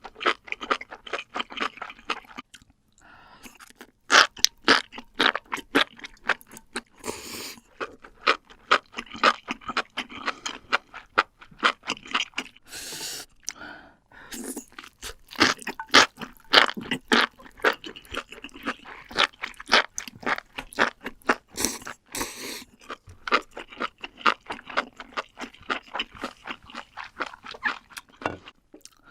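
Close-miked crunching and chewing of crunchy mushrooms: a rapid run of crisp crunches, with a few louder bite sounds scattered through.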